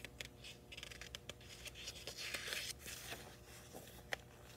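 Faint paper rustling and scraping as a picture book's page is handled and turned by hand, with scattered light clicks and a longer swish of the page about two seconds in.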